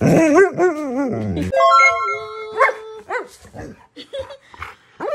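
Husky-malamute dog 'talking' in its reply: one warbling, wavering howl-like vocalization, about a second and a half long, which rises and falls in pitch. A few steady musical tones follow.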